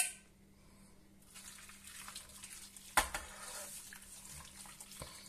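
Hot chicken stock poured from a stainless steel saucepan into a metal roasting tray of potato slices and chicken legs: a steady soft pouring splash that starts about a second in. A sharp metal clink at the very start and a metal knock about three seconds in.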